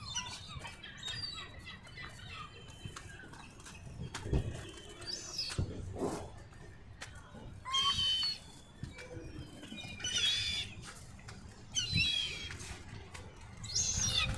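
Birds calling in short high chirps, several times over, with a few low thuds and a rustling background.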